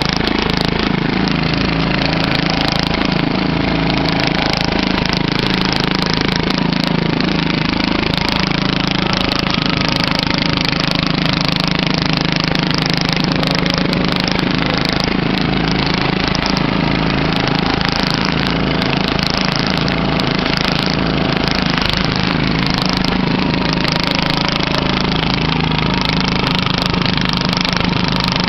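Riding lawn mower engine running steadily and loudly.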